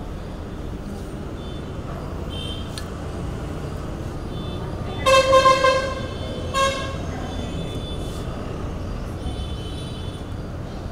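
A vehicle horn honks twice about five seconds in, a toot of under a second and then a short one, over a steady low background rumble.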